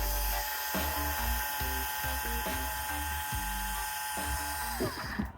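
Small electric water transfer pump running with a steady high-pitched whine while moving water from one tote into another; the whine stops with a short falling pitch near the end.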